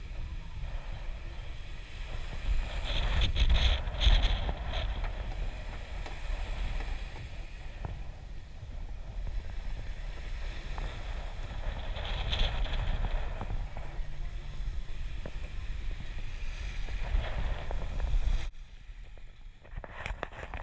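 Wind buffeting the microphone over the low rumble of a boat trailer being backed across beach sand; the rumble cuts off sharply near the end, leaving quieter wash at the water's edge.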